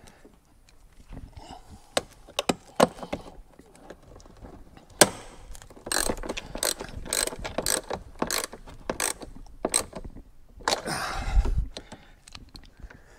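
Hand socket ratchet tightening a seat-mounting bolt, clicking on each back-swing in a steady run of about one and a half strokes a second through the middle, with a few scattered clicks before it. A louder scraping rustle comes near the end.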